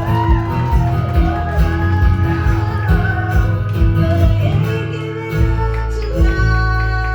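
Country-style band music with acoustic guitar and some wordless singing over a steady beat; the beat drops out about five seconds in, leaving held chords.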